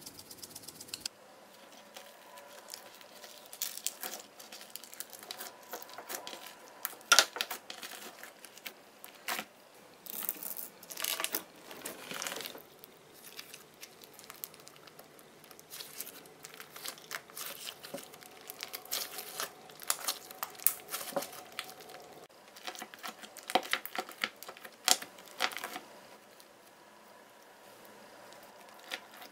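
Hands kneading and stretching blue slime packed with pearl beads, which were added to make it crunchy: faint, irregular sticky crackles and pops.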